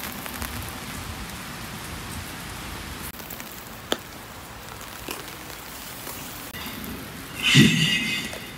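Steady rain, heard from under an umbrella, with a single click about four seconds in and a short, louder swish near the end.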